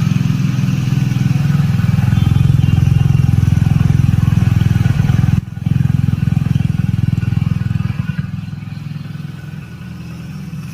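Hero Splendor Plus motorcycle's single-cylinder four-stroke engine running with a steady, fast exhaust beat. It breaks off briefly about halfway through and grows quieter over the last few seconds.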